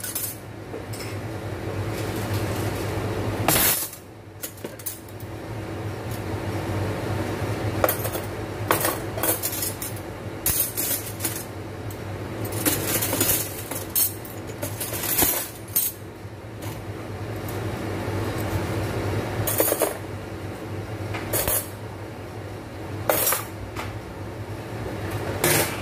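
Spoons and forks clinking and clattering against each other as they are washed, in repeated short bursts over a steady low hum.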